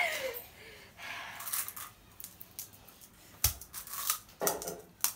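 Crisp puri shells cracking and crunching as they are broken open with the fingers and bitten: scattered crackles and a few sharp cracks.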